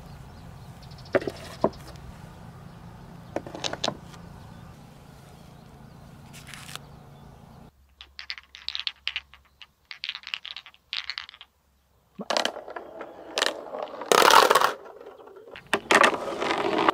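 A few sharp knocks, then clear blue Dragon Ball replica spheres clicking together in cupped hands in short clusters. From about twelve seconds in they clatter and knock against one another and the wooden pegboard marble track as they are set down on it, louder and denser.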